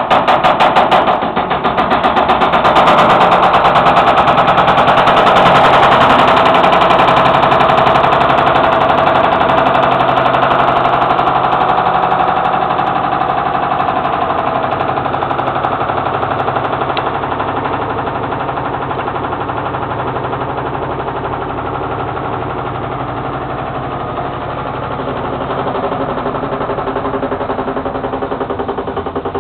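Washing machine starting up abruptly and running loudly with a fast, even mechanical hum, easing off a little after about ten seconds.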